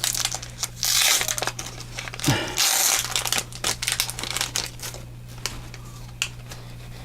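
Plastic wrapper of a trading-card booster pack crinkling and tearing as it is opened by hand, in loud rustling bursts over the first few seconds, then dying down to a few light ticks.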